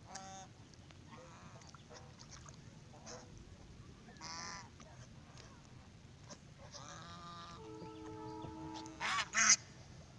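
A flock of domestic ducks swimming on a river, calling now and then with short, harsh honking calls. The two loudest calls come close together near the end.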